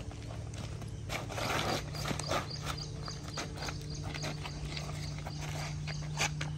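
Irregular sharp knocks and taps over a steady low hum that grows stronger about a second and a half in.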